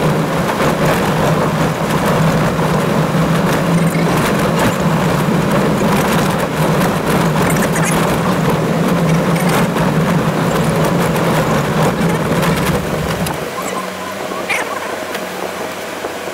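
Toyota Land Cruiser driving on a rough gravel track, heard from inside the cab: steady engine and tyre noise with frequent small knocks and rattles. About three-quarters of the way through, the deep rumble drops away and the sound quietens to a steadier hum.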